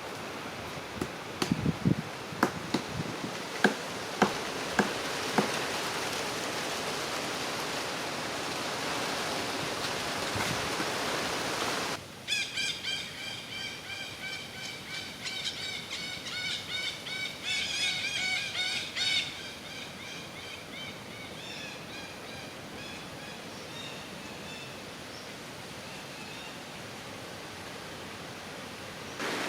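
A steady hiss with a few sharp clicks, then, after a sudden change, a rapid run of high, repeated bird chirps that fades out.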